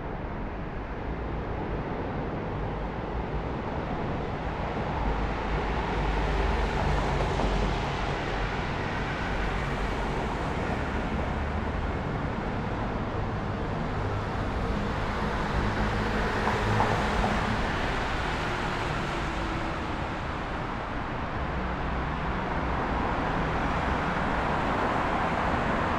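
Road traffic: a continuous rumble of passing cars and engines, swelling and easing as vehicles go by.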